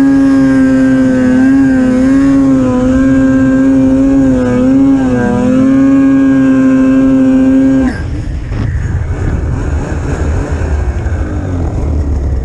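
Polaris Pro RMK 800 snowmobile's two-stroke twin held at high revs under throttle, its pitch wavering slightly. About eight seconds in the throttle is let off and it drops suddenly to a lower, rougher running.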